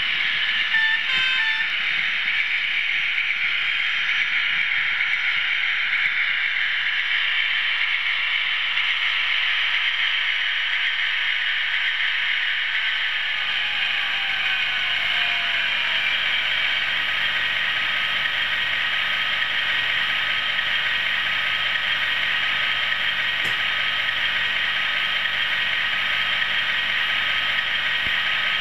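Steady mechanical whirr of small model-train motors and gears running on an OO gauge layout, with a few light clicks about a second in.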